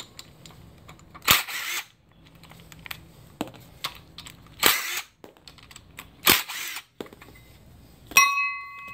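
Cordless impact driver hammering off water pump pulley bolts in three short bursts, with small clicks and handling noise between them. Near the end a metal part clanks and rings on.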